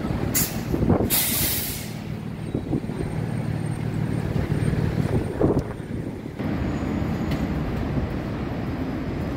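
City street traffic: a truck's air brakes hiss twice near the start, the second hiss longer, over the steady low rumble of heavy engines. A single knock about five and a half seconds in.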